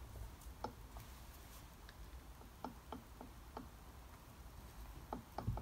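Faint, irregular light clicks as the rotors of an Eaton M90 supercharger are rocked by hand, knocking within the play left at one end. The owner suspects the pins on the rotor ends have worn.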